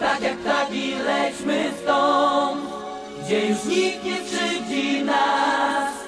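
Disco polo dance song with layered, choir-like sung vocals over synthesizer, with little bass.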